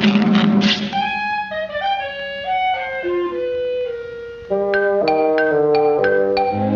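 Orchestral cartoon score. A few drum beats open it, then a slow, stepwise falling woodwind melody, then a run of short, detached notes in the last couple of seconds.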